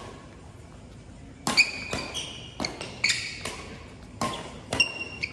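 Badminton rackets striking a shuttlecock in a fast doubles rally: a quick string of sharp hits, mixed with short high squeaks of court shoes on the synthetic mat.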